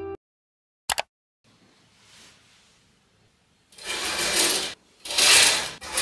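Curtains being drawn open along their rail: rasping slides, each under a second, starting about four seconds in and repeating. A short sharp click comes about a second in.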